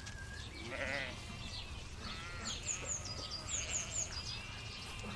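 Sheep bleating, a few quavering calls.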